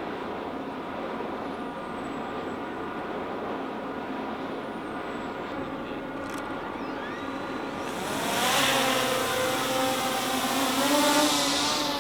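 A motor vehicle's engine runs at a steady hum, then about eight seconds in grows louder, with its pitch rising and a hiss of rushing noise, as it accelerates or passes close by.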